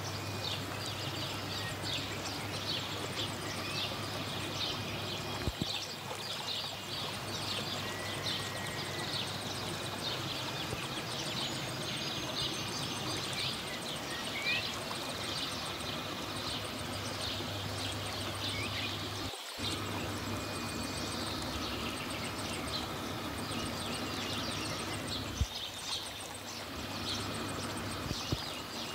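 Aquarium room ambience: the steady low hum of electromagnetic aquarium air pumps, with dense high chirping from small birds throughout and a few brief knocks.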